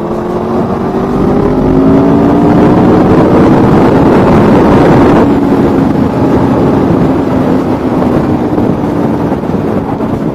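Aprilia Tuono V4 motorcycle's V4 engine pulling hard under open throttle without a downshift, its exhaust note rising for about five seconds. The throttle then closes and the note eases off, with wind rushing over the microphone.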